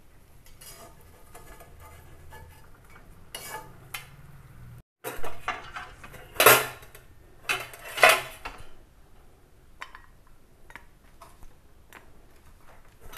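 Metal kitchen utensils clanking against an iron kadhai and being set down: a handful of sharp metal knocks, loudest between about five and eight seconds in.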